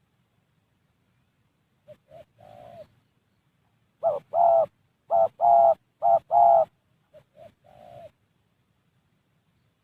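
Spotted dove cooing: a few soft coos, then a louder run of coos about four seconds in, then soft coos again.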